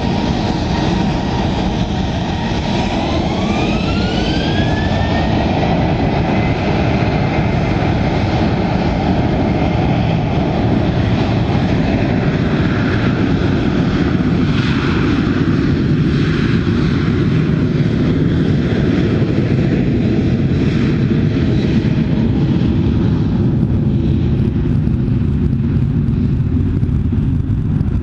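Boeing 737-800's CFM56-7B turbofan engines spooling up for the takeoff run: a whine rises in pitch about three seconds in and then holds high, over a steady loud engine noise with a deep rumble.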